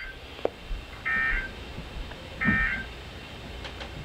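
Weather radio's speaker sending the EAS end-of-message data bursts: two short buzzing digital tone bursts, about a second in and about two and a half seconds in, after a short click. These bursts close the alert broadcast.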